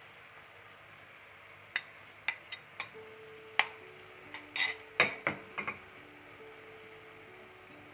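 A glass bowl clinking and knocking lightly against a pan and the countertop: about a dozen short sharp strikes in the middle stretch, a few on their own and then a quick cluster.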